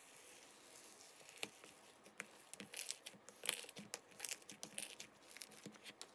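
Fingers pressing and kneading fluffy, airy slime in a plastic tub: faint sticky crackling and popping, a scatter of sharp pops that grows busier from about halfway through.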